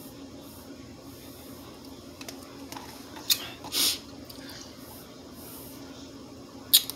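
Protein shake made with frozen fruit sucked through a straw: short slurps about three seconds in, one just after, and a sharper one near the end, over a faint steady hum.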